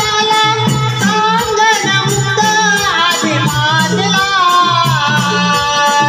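A Marathi folk devotional song (a Shakti-Tura gan): a male shahir singing over a quick, steady percussion beat with rattling small percussion.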